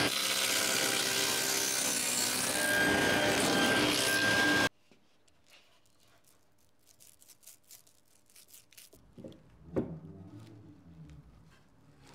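Table saw running and cutting a pine board, a loud steady whine and rasp that cuts off abruptly about halfway through. Then quieter light rubbing and ticking from a small glue roller on wood, and one sharp wooden knock near the end.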